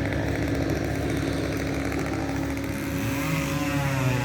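Tree-removal power equipment engine running steadily, with a shift in pitch about three seconds in as the load or throttle changes.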